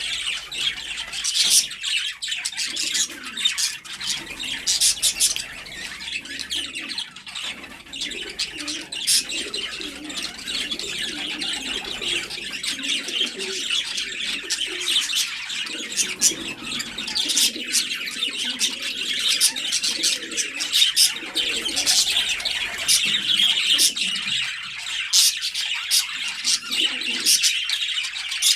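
A crowd of small birds chirping continuously, with pigeons or doves cooing lower underneath at intervals, mostly through the middle and again near the end.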